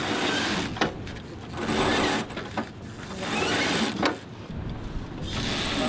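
Wind buffeting the microphone in gusts that swell and drop about every second and a half, with a couple of sharp knocks.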